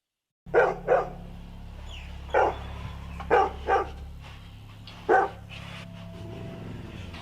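A dog barking, six short barks at uneven intervals, starting suddenly about half a second in over a steady low hum.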